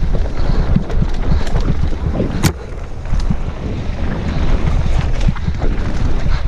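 Wind buffeting a helmet-mounted action camera's microphone as a mountain bike descends a dirt trail at speed, with the bike rattling and knocking over the rough ground and one sharp clack about two and a half seconds in.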